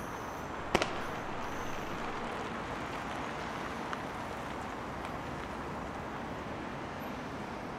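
City traffic ambience: a steady hum of road noise, with one sharp click about three-quarters of a second in.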